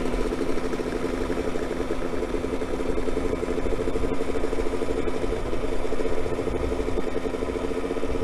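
Dirt bike engine idling steadily, with an even, rapid pulsing beat.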